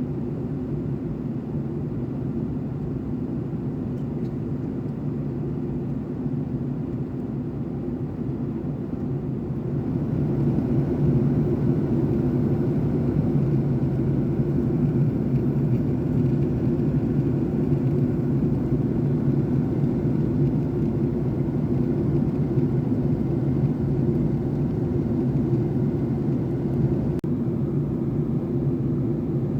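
Steady cabin drone of a Boeing 757-200 in cruise: airflow over the fuselage and the hum of its Rolls-Royce RB211 engines, growing a little louder about ten seconds in.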